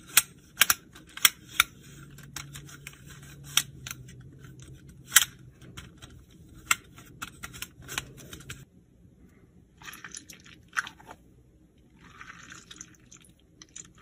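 Sharp plastic clicks from a linked set of round patterned plastic fidget discs being flipped and pressed by hand, about a dozen irregular clicks with the loudest about five seconds in. After about eight and a half seconds only a few faint clicks remain.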